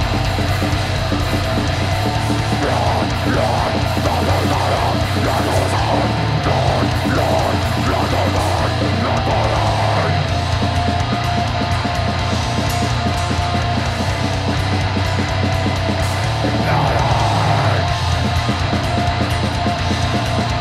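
A metal band playing live and loud: distorted guitars and bass over a drum kit, with a vocalist's harsh voice over the band for stretches, first for several seconds early on and again briefly later.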